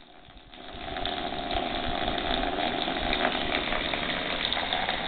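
Water jetting under pressure from a rust leak in a corrugated-steel rainwater tank and spattering on the hand and leaves around it: a steady hiss that builds over the first second, then holds.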